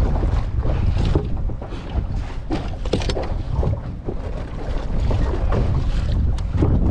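Wind buffeting the microphone in a heavy, uneven rumble, with water slapping against the side of a small fishing boat and scattered light knocks.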